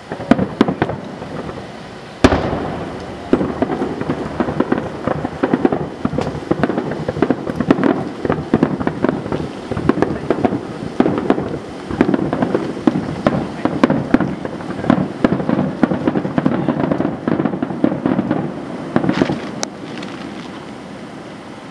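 A rapid barrage of aerial firework shells bursting: dense, overlapping booms and crackles, with a sharp loud bang about two seconds in, dying away near the end.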